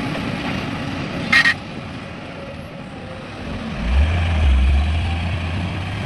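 Heavy diesel engine of construction machinery running, with a brief high hiss about a second in. The engine then revs up for about a second before settling back.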